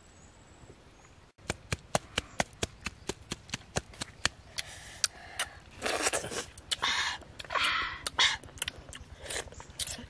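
Close-up eating of cooked clams: many sharp clicks and crunches, several a second, with a few longer noisy stretches in the middle.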